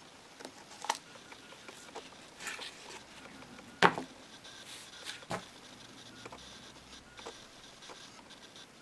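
Handling noise as a bowie knife is drawn from its nylon sheath and the sheath is put down: scattered light clicks and rustles, with one sharp knock a little under four seconds in.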